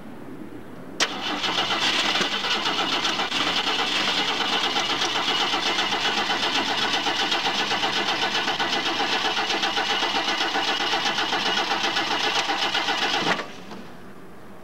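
Ford Maverick's starter cranking the engine for about twelve seconds with a fast, even pulsing chug. It begins with a click and cuts off suddenly, and the engine does not catch: a no-start.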